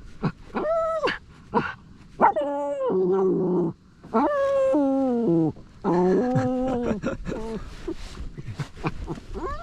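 Bichon Frise dog whining and yelping in a series of drawn-out, wavering cries, agitated at the sight and smell of a raccoon.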